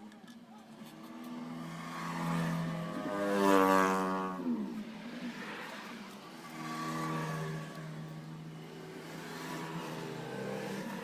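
Freshly rebuilt 100cc single-cylinder four-stroke motorcycle engine revving: the throttle is opened to a high rev about three and a half seconds in, drops back to idle, then is blipped twice more, less high.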